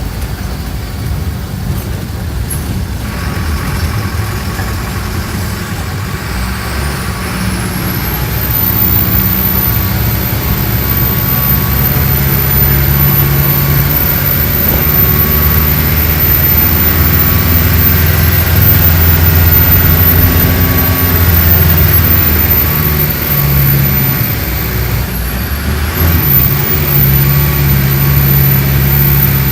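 Mercedes-Benz OF-1417 bus's six-cylinder diesel engine running under way. It pulls harder from about a quarter of the way in, as a high whistle climbs in. It eases off briefly near the end, then pulls again.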